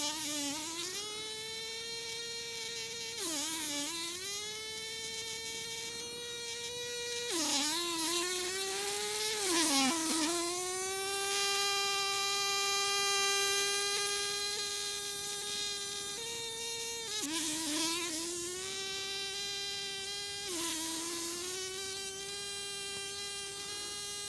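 A fly stuck in a fly trap beating its wings to escape: a continuous buzzing hum that sags in pitch and recovers about five times as it struggles, loudest in the middle.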